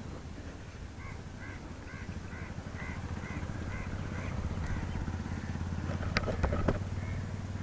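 Wind and tyre rumble from a bicycle being ridden. A bird calls repeatedly, about two calls a second, for a few seconds, and a couple of sharp knocks come near the end.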